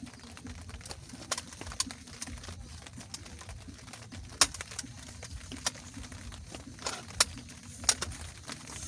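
Scattered drops of rain striking a surface in irregular sharp taps, a few much louder than the rest, over a low steady rumble.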